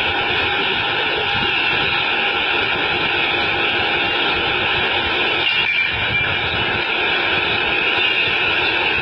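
Steady, loud mechanical running noise, a constant hum and rush with no break or change.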